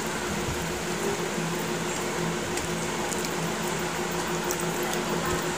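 A steady mechanical hum with an even hiss, with a few faint clicks.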